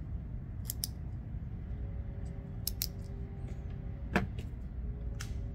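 Light clicks and taps of small folding-knife parts, barrel spacers and a carbon fibre handle scale, being handled and fitted together by hand. There is a sharper knock a little past four seconds in, over a steady low hum.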